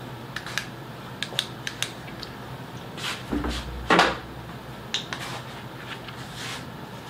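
Handling noises from a workbench: a quick series of small sharp clicks and taps, then a louder clatter about four seconds in, with a few more clicks after it.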